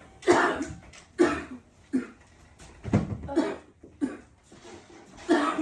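A woman coughing hard in a string of about six harsh, separate coughs spread unevenly over a few seconds. These are staged coughs for a fake coughing-up-blood prank.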